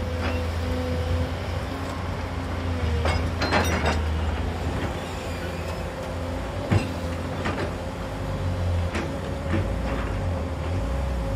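JCB tracked hydraulic excavator working: diesel engine running steadily with a thin steady whine over it, and several clanks from the bucket and boom as it swings and digs, the sharpest about halfway through.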